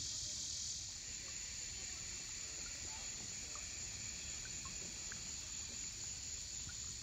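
Steady high-pitched drone of an insect chorus, easing slightly about a second in, with a few faint short chirps.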